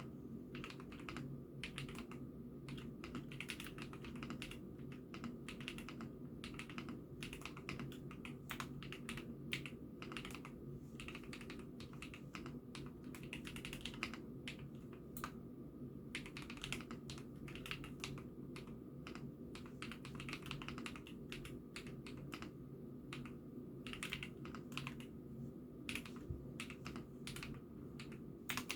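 Continuous typing on an IKKI68 Aurora mechanical keyboard: a dense, irregular run of key clacks, recorded through a phone microphone over a low steady background hum.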